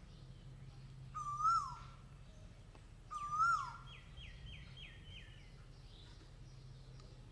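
Koel calling: two loud whistled notes, each rising then dropping, about two seconds apart. After the second, a quick series of about six short, higher falling notes follows, over a faint steady low hum.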